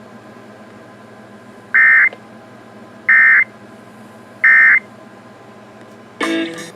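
EAS/SAME end-of-message data bursts on a weather radio broadcast: three short, loud two-tone digital warbles, about 1.3 s apart, signalling the end of the warning message. A brief burst of mixed tones follows near the end.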